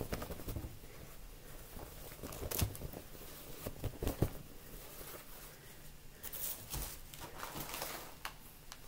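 Quiet rustling and crinkling as a cloth dust bag and its plastic wrapping are handled, with a few light sharp clicks. The clearest click comes about four seconds in.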